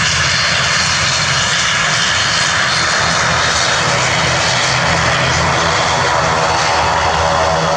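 ATR 72 twin turboprop engines running as the airliner taxis past, a loud steady whine and hiss over a low hum.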